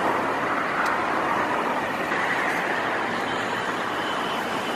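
Steady road traffic noise, with cars and larger vehicles passing on a city street.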